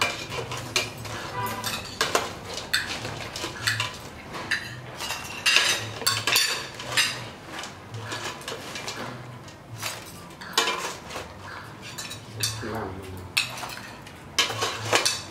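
Metal ladle clinking and scraping in a stainless steel pot as boiled crabs are scooped out, with crab shells clattering into a wire mesh strainer: irregular clatter throughout.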